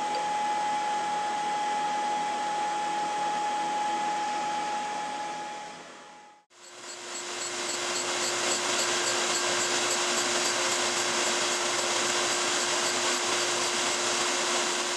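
Cutter grinder's spinning diamond wheel grinding carbide inserts: a steady whirring hiss with a motor whine. About six seconds in it fades out, then starts again at the same level with a lower whine.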